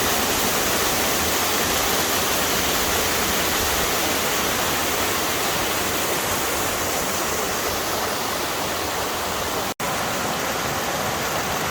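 Waterfall: water rushing down steadily, with a split-second dropout about ten seconds in.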